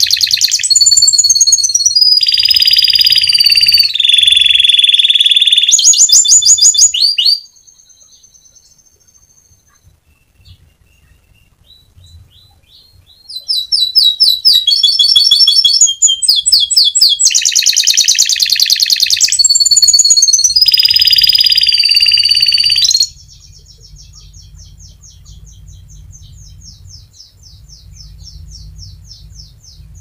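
Domestic canary singing a long rolling song of rapid high trills and chirps. It sings in two long, loud bouts, the first stopping about seven seconds in and the second running from about thirteen to twenty-three seconds. Softer, fast trilling fills the gap between them and goes on near the end.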